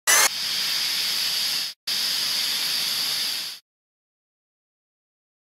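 Water cannon spraying: two bursts of hissing spray, each about a second and a half with a short break between, the first opening with a brief sharper rush.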